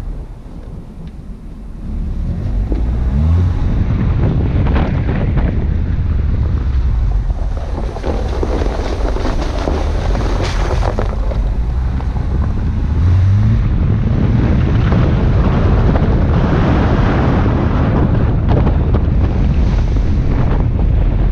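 Wind buffeting the microphone of a camera mounted outside a 2003 Subaru Forester, over the low rumble of its flat-four engine and tyres on a snowy dirt track. The noise gets louder about two seconds in, and a short rising engine note comes about three seconds in and again about thirteen seconds in.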